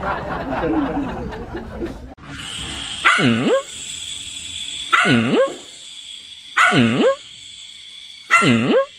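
A dog giving four short barks about a second and a half apart, each dipping and then rising in pitch, over a steady high whine. Before them comes a brief noisy stretch that cuts off about two seconds in.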